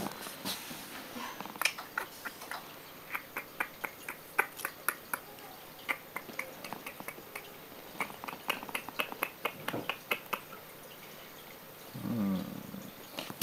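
Puppies stirring and mouthing one another in a wicker basket: a run of small, irregular clicks and smacks, with a brief low pitched grumble about twelve seconds in.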